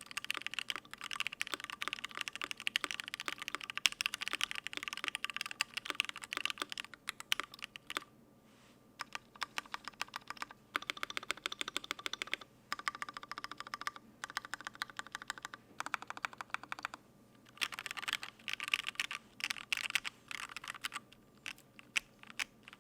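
Fast typing on a gasket-mounted custom mechanical keyboard with lubed Gateron Ink Black linear switches, a brass plate and GMK keycaps: quick runs of keystrokes broken by short pauses.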